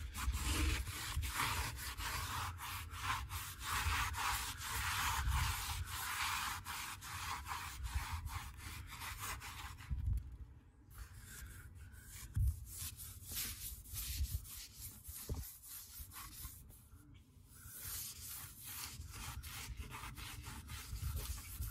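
A cloth rubbing back and forth over a Skeeter bass boat's freshly buffed hull, wiping off the polish residue. Brisk strokes, several a second, run for about the first half, then the rubbing turns lighter and more broken, with a couple of soft knocks.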